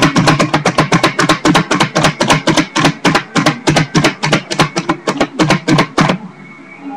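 Music with a rapid, even, percussive rhythm of about seven sharp strokes a second, stopping abruptly about six seconds in.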